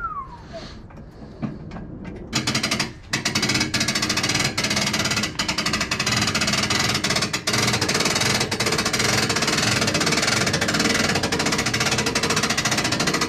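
A loud, rapid, steady mechanical rattle that starts about two seconds in and keeps going. A short falling whistle-like tone comes just before it.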